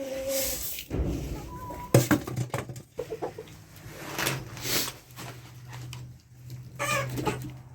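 Chickens clucking, mixed with knocks and rustling, over a low steady hum that starts about two seconds in.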